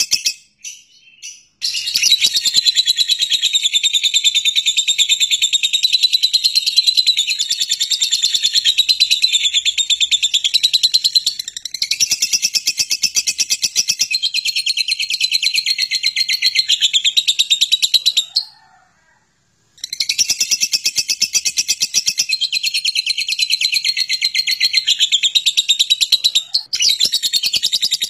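Lovebird ngekek: a long, rapid, high-pitched chattering trill sung in unbroken runs of many seconds, breaking off briefly near the start and again about two-thirds of the way through.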